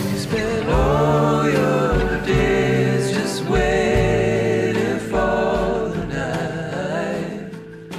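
Background music: a sung vocal line over low bass notes, fading out near the end.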